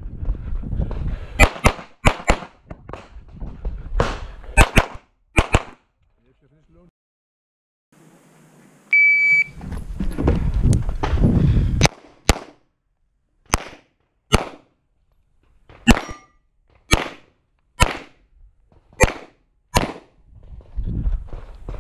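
A 9mm Major compensated open-class pistol (SPS Vista Star 2011) firing several quick pairs of shots. After a pause, an electronic shot-timer start beep sounds briefly, and about three seconds later the pistol fires a steady run of about ten shots, roughly one a second.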